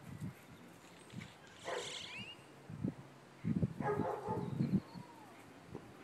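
German Shepherd puppy barking nervously, a quick cluster of low barks a little past the middle, at a flower pot blown about by the wind.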